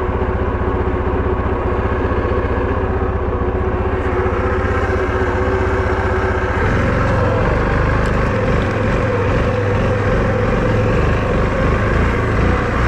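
ATV engine idling steadily with an even pulse. About six and a half seconds in, it gets louder and rougher as it is throttled up.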